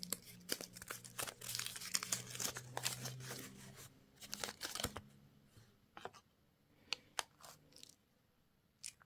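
Plastic candy wrapper crinkling and tearing for about five seconds, then a few separate clicks and taps.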